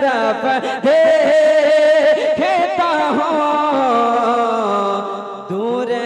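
A man singing an Urdu naat through a microphone in long held notes that waver with ornamented turns. The line breaks off briefly about five and a half seconds in, and the next phrase begins.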